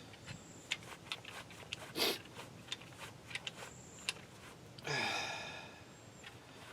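Hand tools clicking and clinking against the brake hardware, with a sharper knock about two seconds in and a louder ringing metal clank about five seconds in that dies away over a second.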